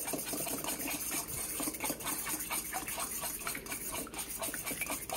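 Fork whisking beaten eggs in a stainless steel bowl: liquid sloshing with quick, irregular taps and scrapes of the fork against the metal.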